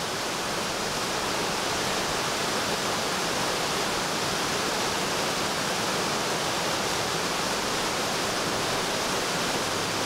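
Rushing water of a mountain river or falls: a steady, even rush with no breaks.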